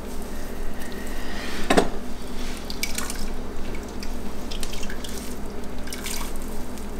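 Dye bath liquid dripping and splashing as wet fiber is worked and lifted in an enamel pot, with scattered small drips and one sharper knock about two seconds in.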